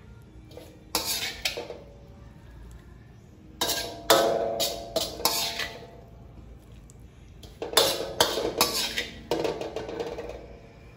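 Metal spatula scraping the wok and clinking against a ceramic plate while larb is served, in three bursts of clinks and scrapes about a second, four seconds and eight seconds in.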